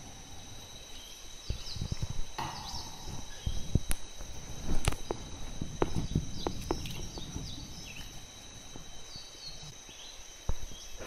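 Steady high-pitched insect drone with scattered short bird chirps. A run of sharp knocks and low rustling comes in the middle, loudest a little before 5 seconds in.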